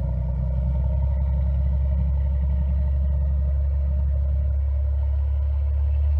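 Heavy military truck engine of an S-400 missile launcher running steadily, a deep, even low rumble.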